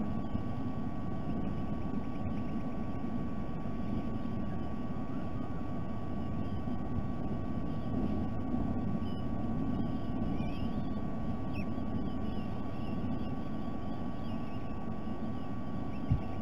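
Steady low rumble of background noise with a constant electrical hum through the nest-cam microphone, with faint high chirps scattered through the middle and a single brief low thump near the end.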